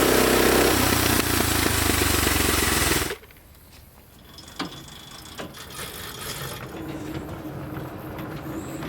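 Engine-driven homemade band sawmill running loud, cut off abruptly about three seconds in. Then comes a quieter stretch of a few sharp clicks and knocks, with a low steady hum building toward the end.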